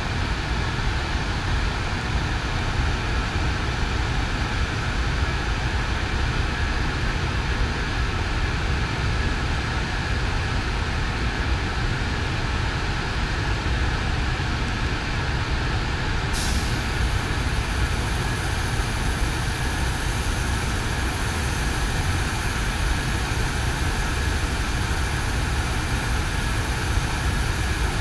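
JR Freight EF200 electric locomotive standing with its equipment running: a steady low hum with a steady whine over it. About halfway through, a high hiss cuts in suddenly and keeps on.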